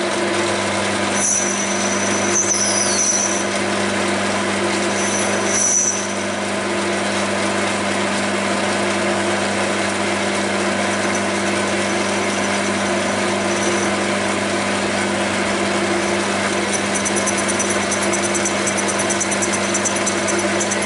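Metal lathe running with its chuck spinning and a cutting tool refacing the end of the workpiece: a steady motor hum under the noise of the cut. Brief high squeals come a few times in the first six seconds, and a fast high ticking sets in near the end.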